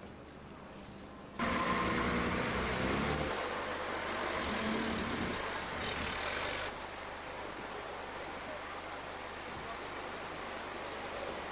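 Town street traffic: a car engine passing close by with tyre noise on the road, over general street ambience. The sound jumps suddenly louder about a second and a half in and drops abruptly about two thirds of the way through.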